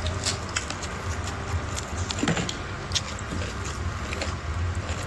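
Steady low hum with scattered small clicks and ticks of someone eating close to the microphone, and one short falling squeak about two seconds in.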